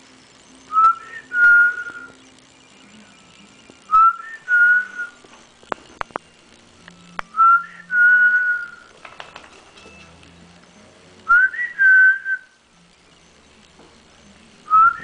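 Chow mix puppy hiccuping: five squeaky hiccups about every three and a half seconds. Each is a short rising squeak followed by a longer, steady high squeal.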